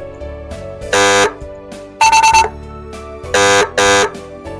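AS930 300 W electronic siren horn sounding through its speaker: loud, short, buzzy honks about a third of a second each, with a rapid four-pulse stutter between them, in a regular repeating pattern: one honk, the stutter, then two honks.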